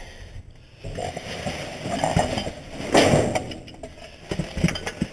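Black plastic garbage bags rustling and crinkling as hands rummage through them, loudest about three seconds in, followed by a few short clinks and knocks of items being shifted.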